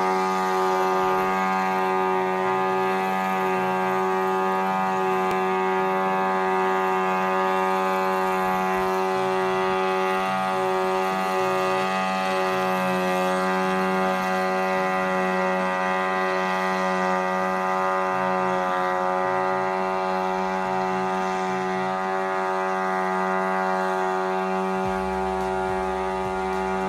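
Y25 hybrid crop-spraying drone in flight: a steady, even-pitched drone from its engine-generator and rotors, the pitch wavering slightly now and then. A low rumble joins near the end.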